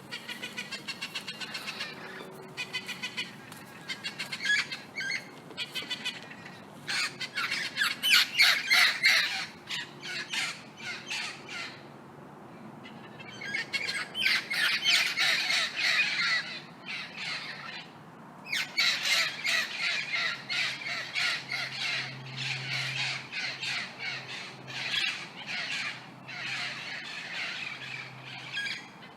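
Several parrots squawking: harsh, rapidly repeated calls coming in bursts, with a couple of brief lulls between them.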